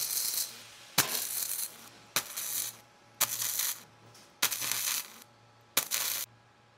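Furius Flex 121 wire welder tack-welding 18-gauge sheet steel with 0.9 mm self-shielded flux-core wire: five short bursts of arc crackle, each starting with a sharp snap and lasting under a second, about a second apart.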